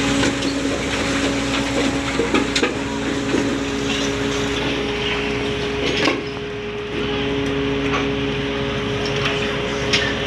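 Steady hum of ship's machinery, with scattered knocks and clanks of hard objects striking metal, one louder knock about six seconds in.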